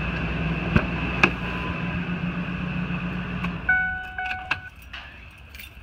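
Ford F-250 engine idling steadily, with a couple of sharp clicks, then switched off about two-thirds of the way in. As it stops, the truck gives a short run of electronic chime beeps.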